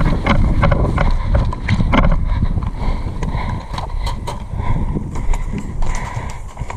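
Hurried footsteps through grass, about three a second at first, then more scattered, with gear rattling and wind buffeting the microphone.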